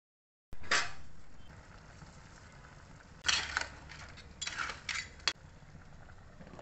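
Metal spoon stirring crab pieces in thick masala in a non-stick pan, scraping and clinking against the pan. One scrape comes about a second in, then a cluster of scrapes a little past the middle, ending with a sharp click.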